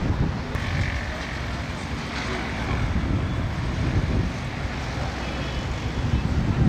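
Wind rumbling and buffeting on the microphone, a steady uneven low rumble.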